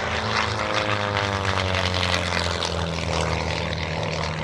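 Pitts aerobatic biplane's piston engine and propeller running hard on a low pass, the pitch dropping as it goes by.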